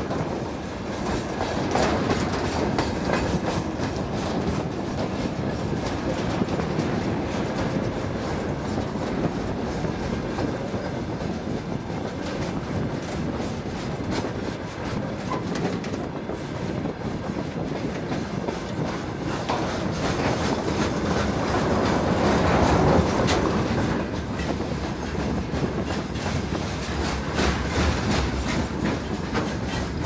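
Freight train of covered boxcars rolling past close by, its wheels clattering steadily over the rail joints, growing a little louder about three-quarters of the way through.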